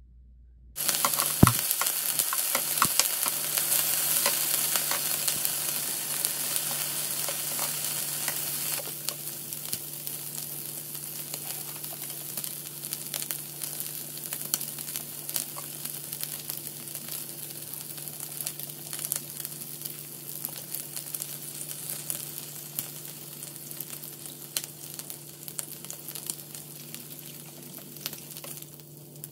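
Pork slices sizzling and crackling on an electric grill plate. The sizzle starts suddenly about a second in and is loudest for the first several seconds. After about nine seconds it settles into a quieter crackle with scattered pops, over a steady low hum.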